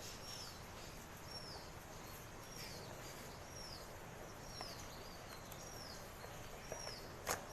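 A bird calling over and over, a short high chirp that slides downward, repeated about every half second to second over faint background noise. A single sharp click comes near the end.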